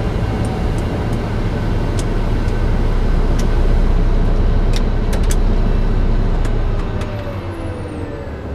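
TBM 850's turboprop engine being shut down after taxi: a loud, steady low rumble that eases off about seven seconds in, as the engine's tones start falling in pitch while it spools down. Several sharp clicks, like cockpit switches, are scattered through it.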